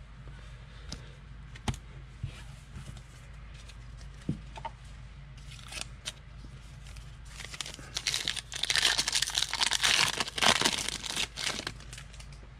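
Foil wrapper of a football trading-card pack crinkling and tearing as it is ripped open by hand, starting about seven and a half seconds in and lasting some four seconds. Before that, a few faint clicks.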